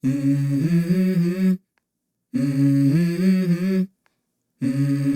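Wordless hummed vocal melody from a song's intro: three short phrases of held, stepping notes, each cut off by a sudden silence.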